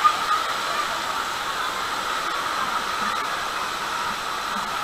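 Steady hiss of water spraying and splashing from a water-park play structure.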